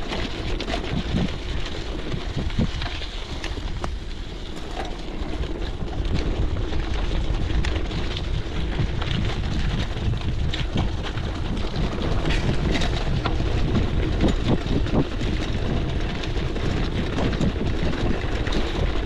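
Wind noise on the on-board camera's microphone as a gravel bike rolls over stone paving, with a constant clatter of small knocks and rattles from the tyres and bike on the stones. The noise grows a little louder about six seconds in.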